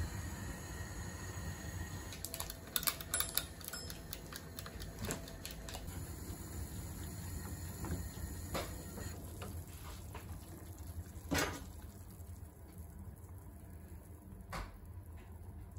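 Water boiling in a stainless steel saucepan of samphire on a gas hob: a steady low rumble. Scattered clicks and taps of a metal utensil against the pan sit on top, the loudest about eleven seconds in.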